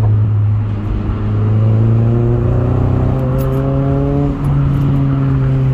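1995 Honda Prelude's 2.2-litre H22A VTEC four-cylinder engine pulling under acceleration over a steady low drone, its pitch rising for a couple of seconds and then dropping briefly about four seconds in. The engine is misfiring and not firing its spark right, which the owner puts down to worn spark plugs and leads.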